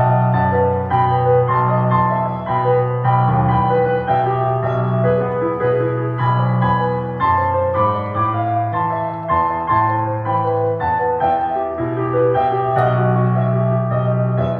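Slow instrumental piano music, a melody of separate notes over steady held bass notes.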